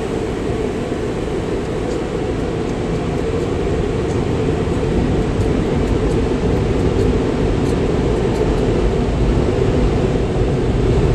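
Car wash air dryers blowing, a steady loud rush heard from inside the car's cabin as air drives water off the windshield, getting a little louder from about four seconds in.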